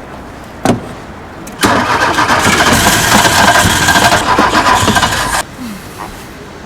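Audi 80 engine cranking on the starter motor for about four seconds without catching, then cut off abruptly: the car will not start. A short knock comes about a second before the cranking.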